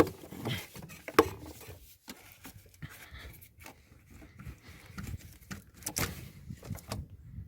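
Hands working on engine-bay parts: scattered light clicks and knocks with some rubbing as a hose fitting is loosened and pulled out, with sharper clicks about a second in and about six seconds in.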